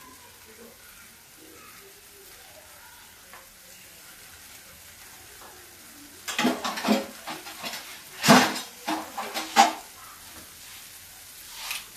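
Eggplant pieces frying with a gentle, steady sizzle in a stainless steel pan. From about six seconds in, a run of loud metallic clatters and scrapes of steel kitchenware, loudest about eight and nine and a half seconds in.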